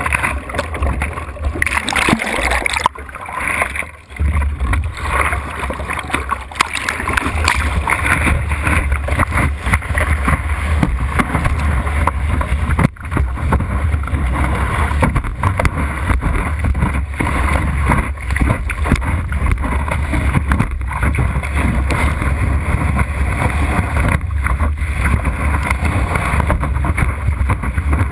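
Water rushing and slapping against the nose of a board skimming fast over choppy sea, with steady wind rumble on the microphone.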